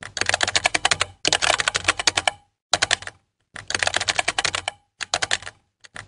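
Keyboard typing clicks, fast and in runs of about a second each, broken by short pauses. It is a typing sound effect for caption text appearing letter by letter.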